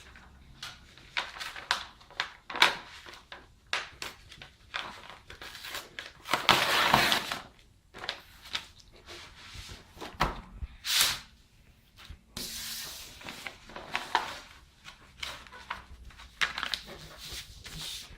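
Irregular knocks, thuds and handling noises in a small room, with a longer burst of rustling noise about six seconds in and a shorter, hissier one about twelve seconds in.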